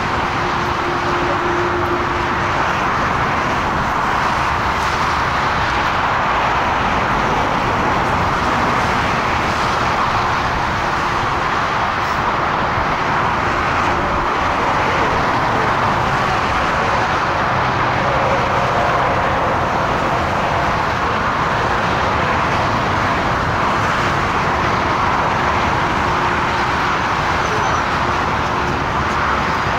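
Four Rolls-Royce Trent 900 turbofans of an Airbus A380-841 at takeoff power during the takeoff roll: a steady, even jet engine noise that holds level throughout.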